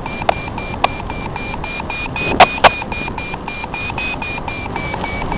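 Paragliding variometer beeping rapidly, about four to five high beeps a second, over steady wind rush on the microphone; the beep pitch rises a little in the middle and drops slightly near the end, the climb tone of a glider rising in a thermal. A few sharp knocks, the loudest two close together about two and a half seconds in.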